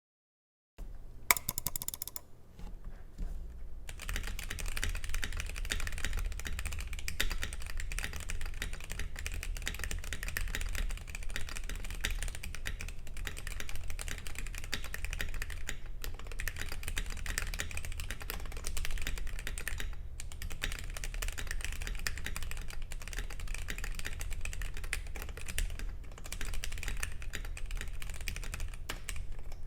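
Keychron Q1 aluminium mechanical keyboard with Akko CS Jelly Pink linear switches being typed on. A few scattered keystrokes come first, then fast, continuous typing from about four seconds in, with a couple of brief pauses.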